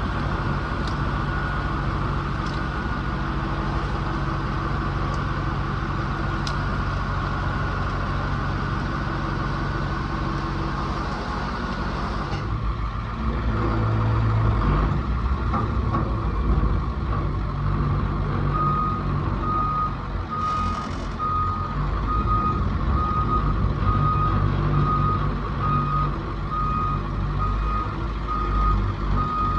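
Diesel-type work vehicle engine running steadily, its sound changing about twelve seconds in. From about two-thirds of the way through, a backup alarm beeps in an even series as the machine reverses.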